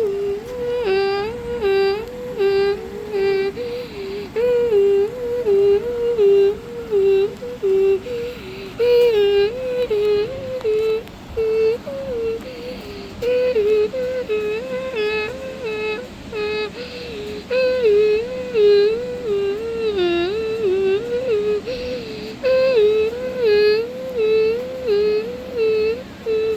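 A voice imitating the hi-lo tone of a Federal Signal Thunderbolt 1003A warning siren, switching between two pitches about twice a second and breaking off briefly every few seconds.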